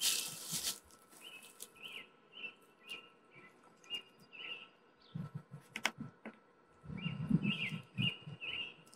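A small bird chirping: a steady series of short, high chirps, about two to three a second. A few dull low thumps and a sharp click come in the second half.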